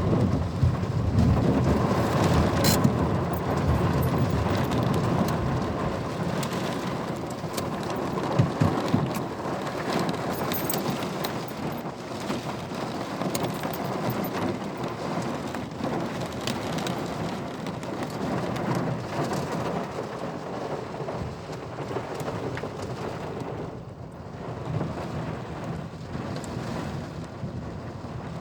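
Heavy rain pouring in a storm, with a low rumble of wind buffeting under it. The rumble is strongest in the first half and slowly eases toward the end.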